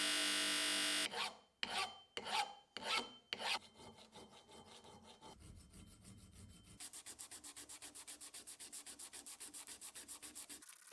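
A bench buffing wheel runs for about a second and cuts off. Then a hand file makes about five loud strokes across the steel vise body, followed by lighter, uneven filing. From about seven seconds in, an abrasive strip is rubbed quickly back and forth over the metal, about ten strokes a second, stopping just before the end.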